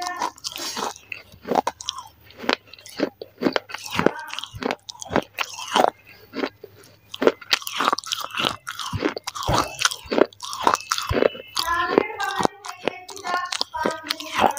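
Pieces of baked clay from a broken clay saucer bitten and chewed between the teeth, close to the microphone: a run of sharp, dry crunches, a few a second.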